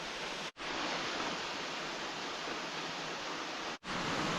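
Steady rushing roar of a waterfall. The sound cuts out abruptly for an instant twice, about half a second in and again near the end.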